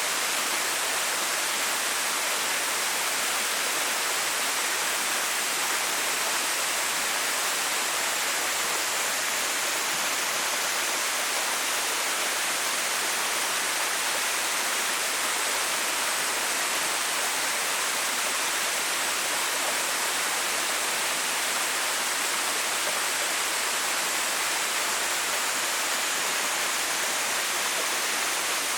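Small waterfall with a 6 m drop: falling water making a steady, even rush, bright and hissy with little low rumble.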